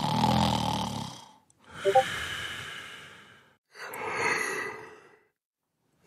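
Snoring and heavy sleep breathing: three long breaths in a row, the first with a low buzz, then quiet for the last second.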